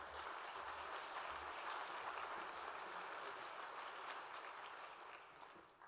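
Audience applauding, a steady spread of many hands clapping that dies away near the end.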